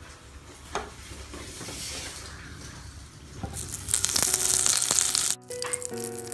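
Butter melting and sizzling in a hot pan. The sizzle turns loud about four seconds in, lasts about a second and a half, then cuts off suddenly.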